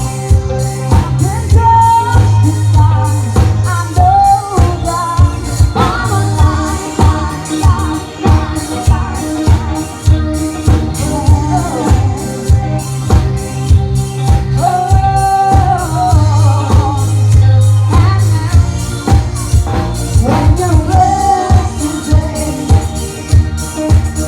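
A band playing a pop song with a singer, over a steady drum beat and bass.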